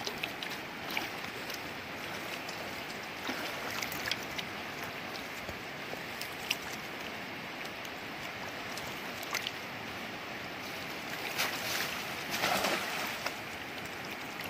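A swollen, fast-flowing river rushing steadily, with small splashes and sloshing as a man wades out into the current; a couple of louder swishes of water near the end.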